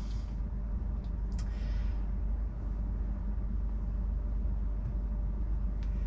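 Steady low hum of a stationary electric car's cabin, the Tesla Model Y standing still at a stop line, with a couple of faint clicks.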